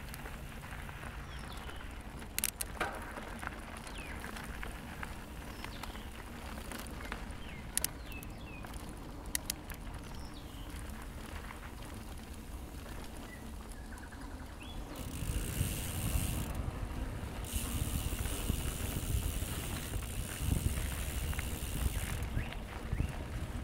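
Quiet bush ambience with a few sharp clicks, then about two-thirds of the way through a mountain bike rolls in on the dirt trail. Tyres rumble over the ground with wind noise, and a high steady buzz cuts out briefly twice.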